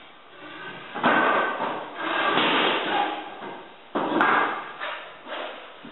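Hardwood flooring boards being laid out and slid into place by hand: wooden knocks with scraping and clattering as boards are set down and pushed along the floor, with sharp starts about one, two and four seconds in.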